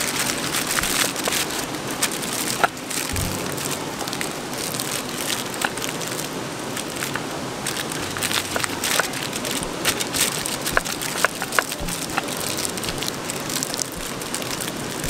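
River water rushing steadily, with frequent small sharp crackles and pops over it.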